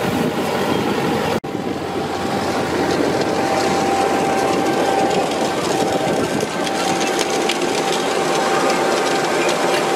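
John Deere 6R tractor engine running steadily as it pulls a Gaspardo precision seeder through the soil. There is a brief break about a second and a half in, after which a thin steady whine sits over the engine.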